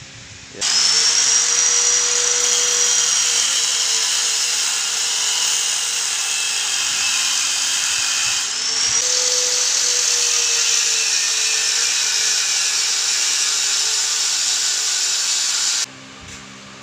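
Angle grinder cutting metal to remove an old caster wheel from a steel rack. It starts under a second in and runs with a steady high whine. The pitch sags slightly under load and rises again about halfway, when the tool is briefly eased off. It stops about a second before the end.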